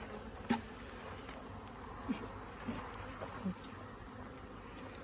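Honeybees buzzing around a hive box, a steady hum of many bees, with a few single bees passing close by as short buzzes partway through.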